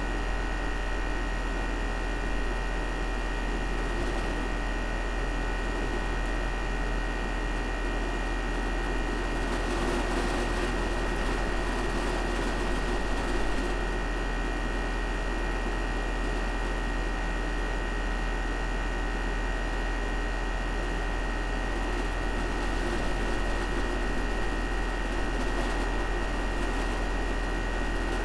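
Carrier air conditioner's outdoor condenser unit running steadily: fan whoosh with a low electrical hum and a thin steady whine.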